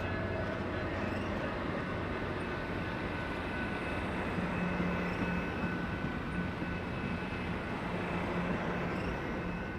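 Passenger train rolling past: a steady rumble of wheels and running gear with a low hum that comes and goes.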